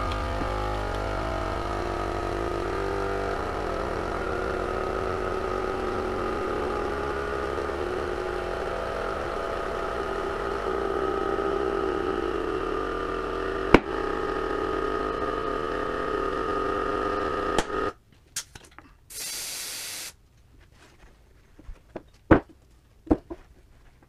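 A steady motor-driven machine running, stopping abruptly about 18 seconds in. It is followed by a short hiss lasting about a second and a few sharp clicks.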